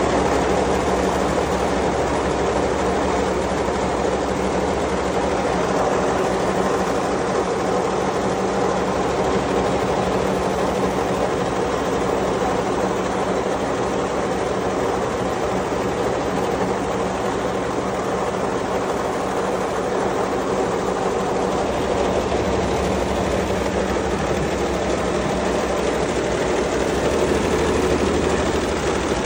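Multi-head SWF industrial embroidery machine running, its needle heads stitching at speed with a steady, rapid mechanical rattle and a low hum.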